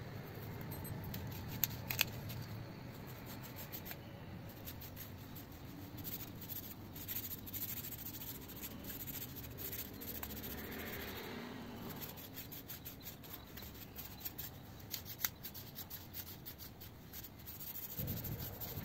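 Small fatwood (resin-rich pine) ring being worked by hand on a short rod: faint rubbing and scraping of wood, with scattered small clicks and a couple of sharper ticks.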